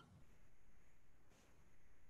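Near silence: faint room tone, with one faint click a little past halfway.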